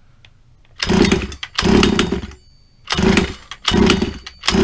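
Motorcycle engine being cranked over in five short bursts, each with a loud metallic clanging from the clutch area and a high bell-like ring hanging on between them. The clanging's cause is unknown to the owner; a broken clutch spring has already been replaced and it persists.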